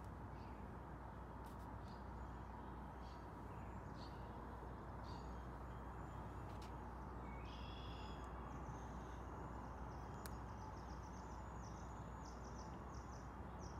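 Small birds chirping over a steady low outdoor hum, with a quick run of high chirps in the second half.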